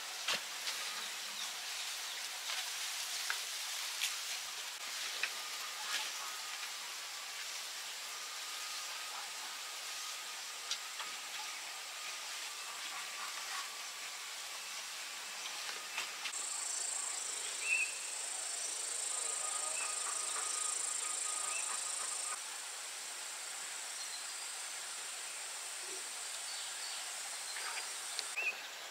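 Outdoor ambience: an even hiss with scattered light clicks and taps, and a high, steady insect buzz that comes in a little after halfway and cuts off shortly before the end.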